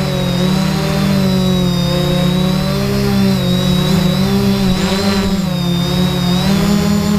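Multirotor drone's motors and propellers whirring close to its onboard camera, a hum made of several pitches that waver up and down together as the motor speeds change, with a brief dip and sweep about five seconds in.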